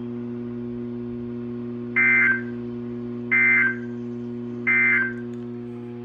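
Emergency Alert System end-of-message data bursts from a weather alert radio's speaker: three short, identical buzzy digital chirps about 1.3 seconds apart, marking the end of the severe thunderstorm warning, over a steady low hum.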